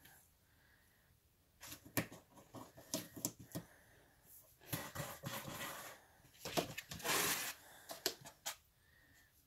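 Claws scratching and scrabbling at the inside of a cardboard box in irregular clicking bursts, with a longer rasping scratch a little after the middle: an animal shut in the box trying to get out.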